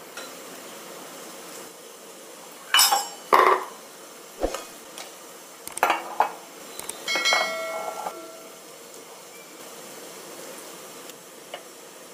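Metal idli plates and a spoon clinking and clanking as thick batter is spooned into the moulds and the plates are handled. There are several sharp clanks in the middle, and the last one rings briefly.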